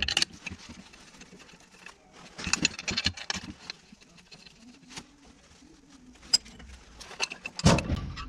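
Metal hand tools and bolts clinking and clicking in short irregular bursts as the thermostat housing bolts on an Iveco Stralis truck engine are fitted and tightened, with a louder scuffle of handling near the end.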